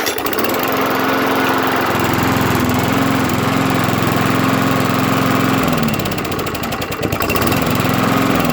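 Small walk-behind lawn mower engine running loudly and steadily after being spun into life with a drill, the pull start being gone. About six seconds in its speed sags, then it picks back up.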